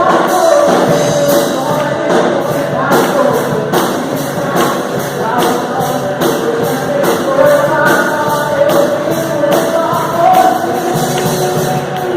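Worship song performed by a band with singing over a steady beat, with tambourine-like percussion.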